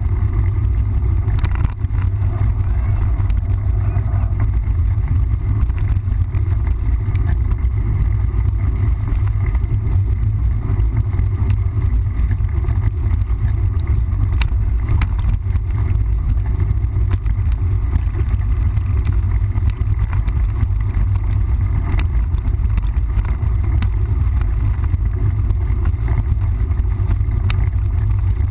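Steady low rumble of wind buffeting the microphone while riding a mountain bike, with scattered clicks and rattles from the bike over rough trail.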